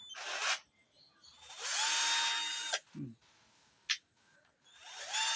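Total 12 V cordless mini drill's motor triggered in short runs: it whirs up to a steady pitch, runs for about a second and stops, then spins up again near the end. A sharp click falls between the runs.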